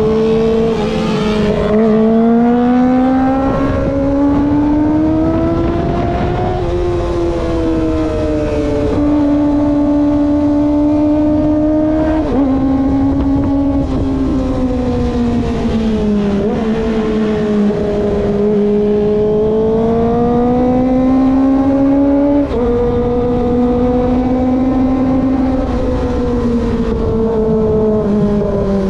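Kawasaki ZX-25R's 249 cc inline-four running at high cruising revs, its pitch rising and falling smoothly with the throttle. A few quick gear changes show as sudden steps in pitch. A low rush of wind noise runs underneath.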